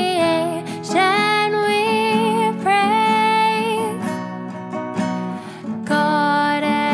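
Worship song: a woman singing over acoustic guitar accompaniment, with a short instrumental gap in the singing about two-thirds of the way through.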